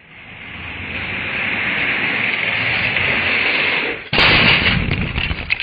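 LEGO train running along the track toward the glass, a steady whirring hiss that grows louder as it approaches; about four seconds in it hits the glass with a loud crash, followed by rapid clattering of parts.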